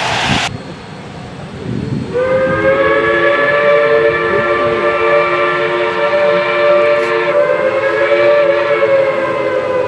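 Steam locomotive whistle blowing one long chime blast of several notes at once, starting about two seconds in and held to the end. Before it, a loud hiss cuts off suddenly about half a second in.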